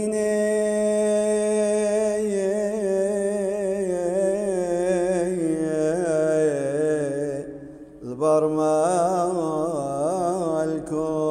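Solo male voice singing a slow, ornamented liturgical chant in long held, wavering notes. It breaks briefly about eight seconds in, then carries on.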